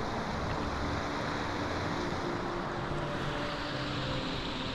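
Steady rushing outdoor noise with no distinct events, and faint held tones underneath.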